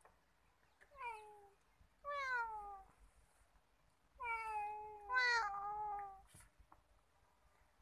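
Domestic cat meowing four times, each meow sliding down in pitch; the first is short and softer, and the last two come almost back to back.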